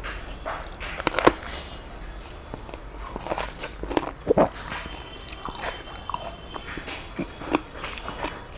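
Close-up eating sounds: a green chili bitten with a crunch, then mouthfuls of rice and fish chewed, in scattered sharp clicks and crunches. Fingers now and then scrape a steel plate.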